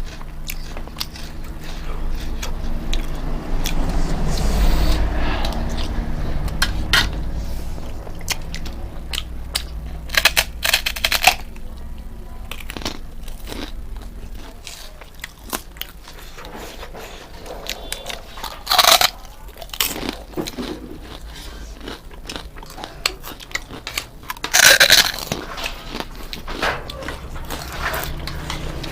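Close-up chewing and crunching of crisp food, with louder bites about a third of the way in, near two-thirds and again near the end.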